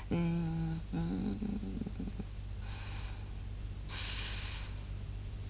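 A woman hums twice in short murmurs, then sniffs twice through the nose about a second apart, smelling a flower to identify it.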